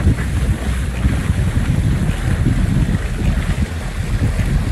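Wind buffeting the microphone with a steady low rumble, over the rushing hiss of water spray thrown up by a hydrofoil trimaran's float and foil strut cutting through the water.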